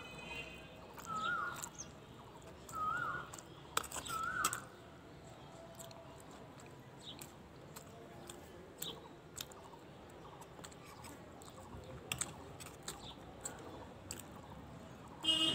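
Close-up eating sounds: chewing of noodles and boiled egg, with small wet ticks and a couple of sharp clicks of a utensil. In the first few seconds a short wavering call from an animal or bird repeats four times, about every one and a half seconds, and is the loudest sound.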